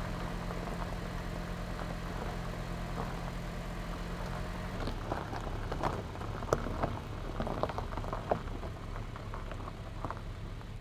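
Two small cars, a Honda Fit nearest, running at low speed as they pull away on a gravel track. A steady engine hum gives way about five seconds in to tyres crunching and popping over the stones.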